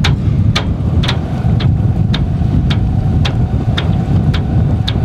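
Wind rumbling on the microphone over the boat's engine running under way, with a sharp tick repeating evenly about twice a second.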